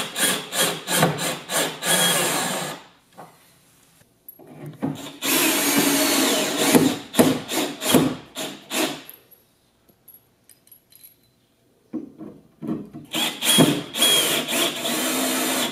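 Cordless drill-driver driving screws into a wooden desktop, in three runs of a few seconds each with short pauses between. Each run starts in quick stop-start pulses, then runs steadily as the screw goes in.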